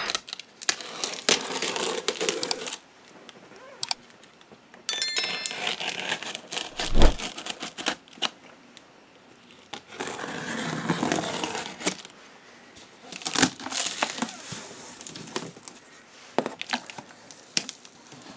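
Cardboard carton being opened and unpacked: tape tearing, with packing film and packing material crinkling and rustling in irregular stretches. There is one dull thump about seven seconds in.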